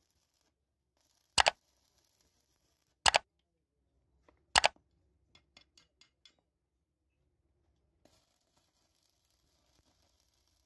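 Hammer striking a steel ball joint part on a metal block: three sharp blows about a second and a half apart, each with a quick double hit, then a few light taps.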